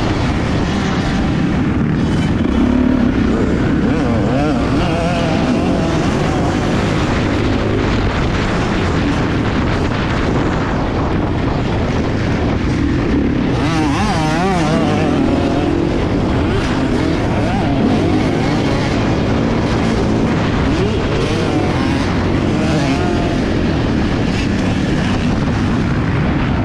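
Kawasaki dirt bike's engine ridden hard around a motocross track, its revs rising and falling over and over through gear changes and throttle on and off.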